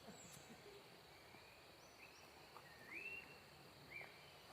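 Faint outdoor ambience: a steady low hiss with a few short rising chirp-like animal calls, about one a second in the second half.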